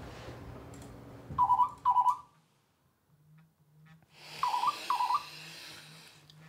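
Telephone ringing in the British double-ring pattern: two short rings, then after about three seconds two more. A faint low pulsing hum runs under the second pair.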